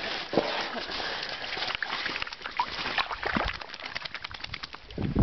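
Wet dogs shaking river water off their coats, the spray spattering in a quick run of ticks and crackles, thickest in the second half. A louder low thump comes right at the end.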